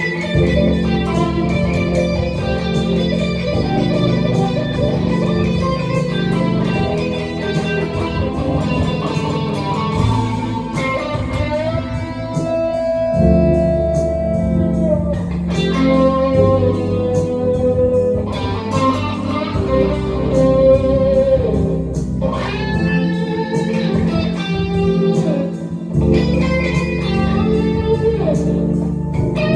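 Telecaster-style electric guitar playing a bluesy lead with long, bent and sustained notes over a backing track.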